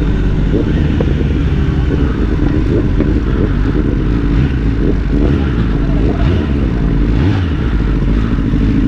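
Sport motorcycle engines running at low speed as the bikes roll in, a loud, steady engine note with small rises and falls.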